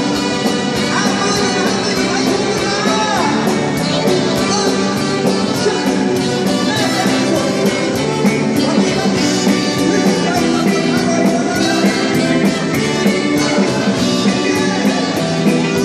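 Live rock band playing, with electric guitars and a drum kit keeping a steady beat.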